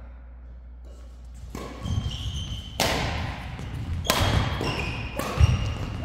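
Badminton rally: four sharp racket hits on the shuttlecock, about a second and a quarter apart, starting about a second and a half in, with heavy footfalls on the court floor between them.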